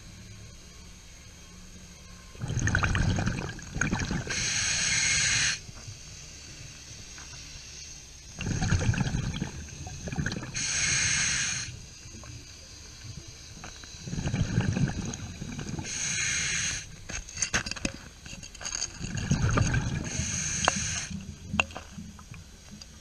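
Scuba diver breathing through a regulator underwater: the hiss of each inhale and the gurgling rumble of exhaled bubbles, four breaths about six seconds apart.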